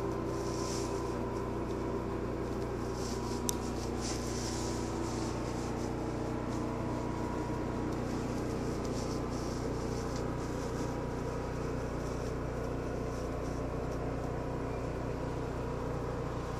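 Steady mechanical hum made of a low drone and several held tones, unchanging throughout, with a single click about three and a half seconds in.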